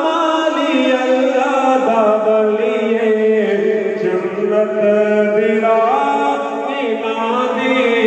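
Devotional vocal music: a man's voice singing long, gliding held notes over a steady low drone.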